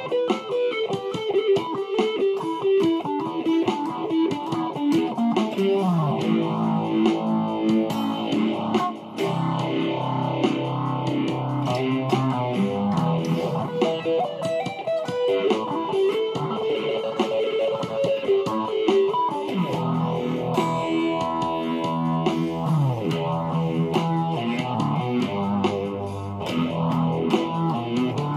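Electric guitar being played: quick runs of notes over held lower notes, without pause.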